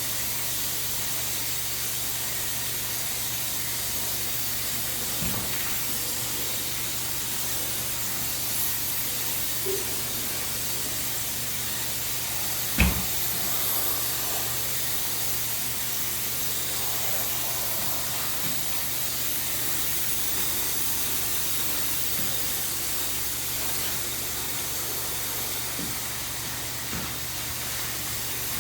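Graco Pro Xp 60 electrostatic air-spray gun spraying catalyzed acrylic enamel with a steady hiss of atomizing air. A single sharp knock comes about halfway through.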